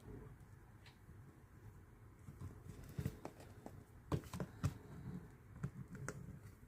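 Faint, scattered clicks and taps of hard cast-resin puzzle-box pieces being handled and set against each other, several light knocks a second or so apart.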